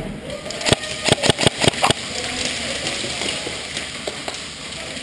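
Airsoft guns firing a quick string of about seven shots over a little more than a second, then a steady background din.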